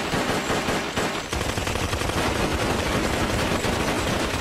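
Semi-automatic pistols firing rapidly and continuously, the shots following one another so closely that they run together. This is a cartoon shootout sound effect.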